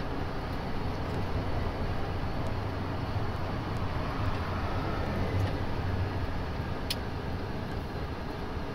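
Steady engine drone and tyre noise of a vehicle cruising on a highway, with a low hum underneath. A single sharp tick about seven seconds in.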